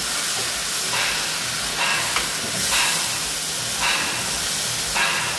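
Onions, garlic and ground spices in mustard oil sizzling in a nonstick pan just after a splash of water was added, hissing steadily as the water boils off. A slotted spatula scrapes and stirs through the masala about once a second.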